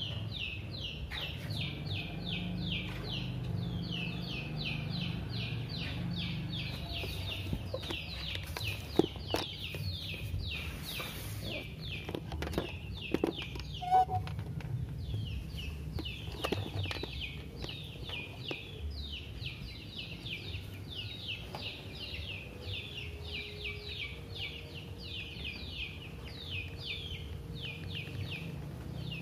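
A bird chirping rapidly and without pause, about four short high falling chirps a second. A low rumble sits under the first few seconds, and a few sharp knocks come about nine and fourteen seconds in.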